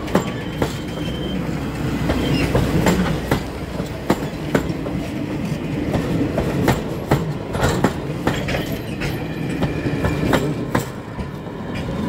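Passenger coaches of a steam train rolling slowly past close by: a steady low rumble, with the wheels clacking irregularly over the rail joints.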